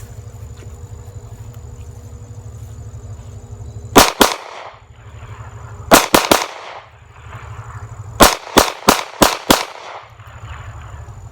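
Smith & Wesson M&P pistol fired in rapid strings of double and triple taps: two shots about four seconds in, another short group about two seconds later, then a fast string of five shots near the end. A steady low rumble runs underneath between the shots.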